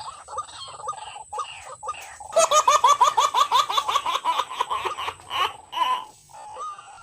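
White-breasted waterhen calling: a long run of repeated chuckling notes, building about two seconds in into a loud, rapid series of about six notes a second that breaks off around five seconds.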